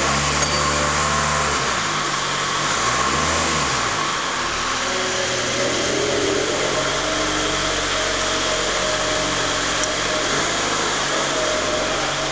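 Forklift truck's engine running, its pitch rising and falling about three seconds in as it works the clamp to lift a paper reel, then running steadily as the truck drives off.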